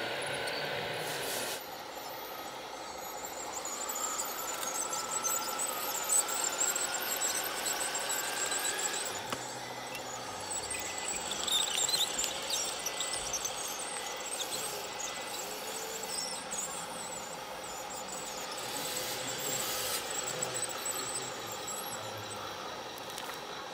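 Radio-controlled model construction machines whining, their small electric motors and servos working, with a rising whine a few seconds in. Around the middle comes a rattle of dirt tipping from a tracked loader's bucket into a dump trailer.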